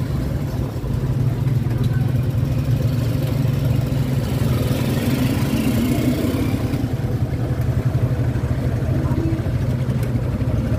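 Motorcycle engine of a motorized tricycle running steadily while riding along a street, heard from inside the sidecar with road noise. About halfway through another tricycle passes close alongside, adding a hiss that swells and fades.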